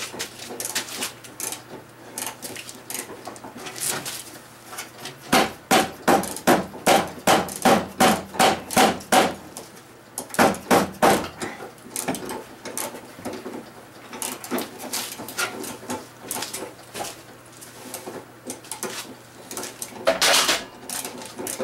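A hammer striking metal: a run of about a dozen ringing blows, roughly three a second, with a short second cluster soon after and scattered knocks and clanks around them.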